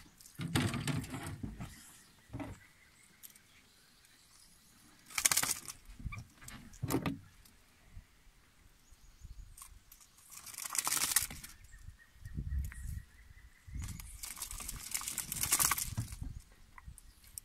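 Bursts of flapping and metallic jangling as a hooked peacock bass shakes on a metal lip gripper while the hook is worked out with pliers, coming several times with quiet gaps between.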